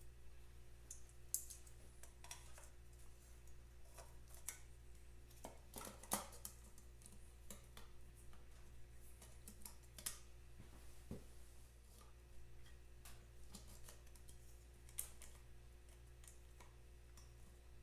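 Faint, scattered clicks and light taps of parts being handled as a motorcycle headlight shell is fitted, a few sharper clicks standing out, over a steady low hum.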